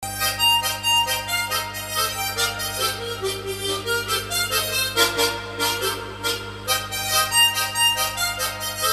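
A solo harmonica played with no backing music: a melody over rhythmic chord strokes that the player makes with mouth and tongue. A steady low hum sits underneath.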